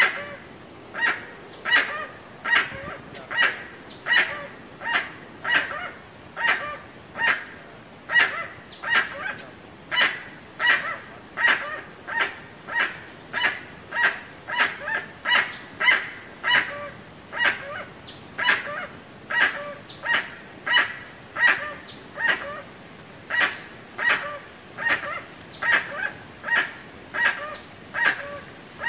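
Jacu (guan) calling in a long series of short, evenly spaced calls, about three every two seconds, without a break.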